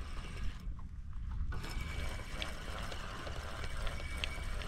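Spinning reel being cranked by hand to retrieve the fishing line, with a faint high whir and a few light ticks over a low steady rumble.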